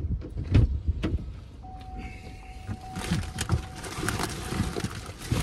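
Thumps and knocks as a man climbs into a pickup truck's driver's seat through the open door, followed by fabric shopping bags rustling and shuffling as they are handled inside the cab.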